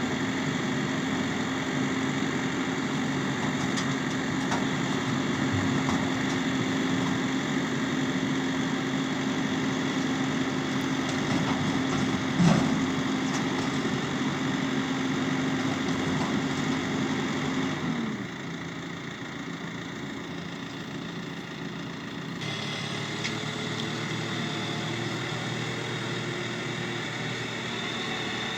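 New Holland T6 tractor engine running steadily, with a single sharp knock about twelve seconds in; after about eighteen seconds its pitch falls and it gets quieter as the engine slows.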